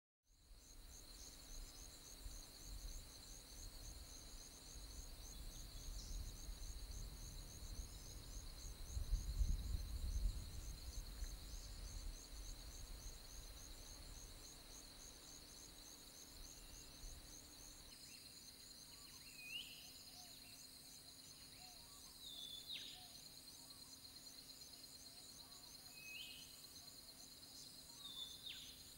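Outdoor bush ambience of insects trilling steadily at a high pitch, under a low rumble that swells in the middle and dies away after about 18 s. In the second half, four short calls sweep downward in pitch, bird calls over the insect chorus.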